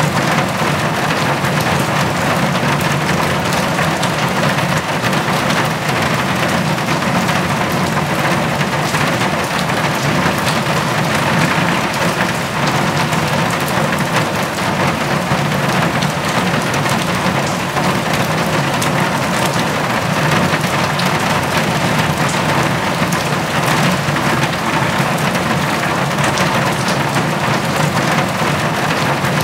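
Steady rain falling on hard brick paving: a dense, even hiss of drop hits.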